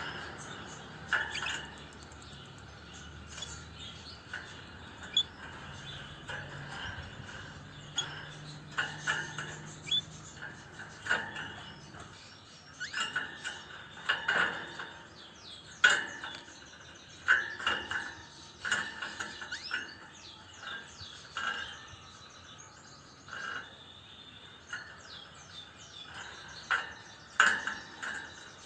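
Red factor canary giving short, scattered chirps and call notes at irregular intervals, not a continuous song, with sharp little clicks among them.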